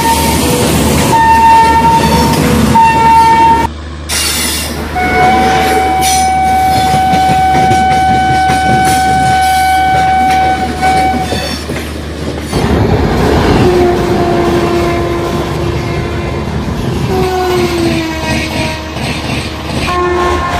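Train horns over the rumble and clatter of a running train. About three short blasts come first, then one long steady blast. Near the end a louder rumble comes in with a lower-pitched horn that dips slightly in pitch.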